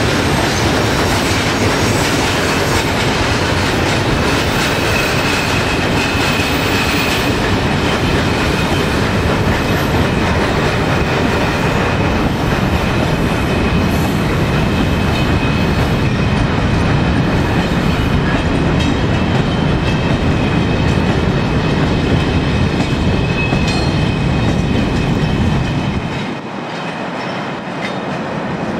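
Freight train of tank wagons and box wagons rolling past, wheels clattering over the rail joints, with a thin high wheel squeal running through much of it. About 26 seconds in the sound drops suddenly and loses its low rumble.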